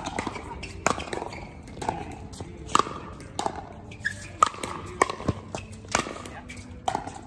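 Pickleball rally: paddles striking the hard plastic ball in sharp pops about once a second, a few in quicker succession, with the ball bouncing on the hard court between hits.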